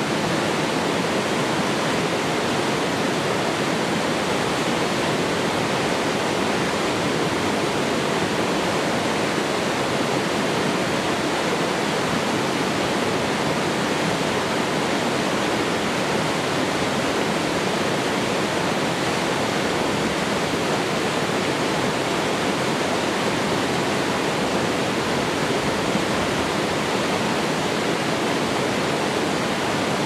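Small mountain-stream waterfall pouring over rock ledges into a pool: a steady, even rush of falling and churning water.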